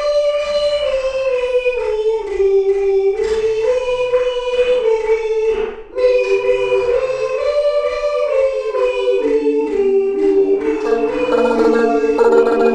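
A choir singing a slow melody in long held notes that step up and down, with a brief break about six seconds in. Near the end more voices or parts come in and the sound thickens into a full chord.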